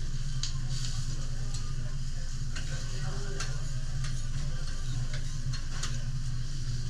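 Food sizzling on a steel teppanyaki griddle, with sharp clicks and scrapes of a metal spatula and knife against the plate every second or so, over a steady low hum.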